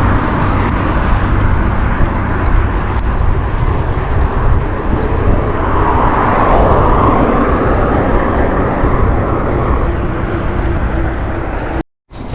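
Loud, steady outdoor noise, like wind buffeting the microphone, with a deep rumble throughout. It cuts out completely for a moment just before the end.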